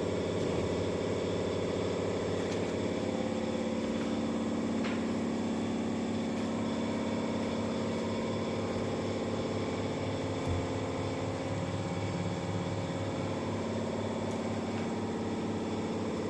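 A motor running steadily with an even low pulse.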